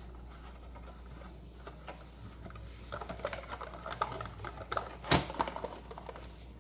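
Small plastic toy pieces being handled: a run of light clicks and taps, busiest in the second half, with one sharper click about five seconds in.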